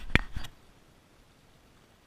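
A quick run of three or four sharp clicks and knocks in the first half second, then only faint hiss.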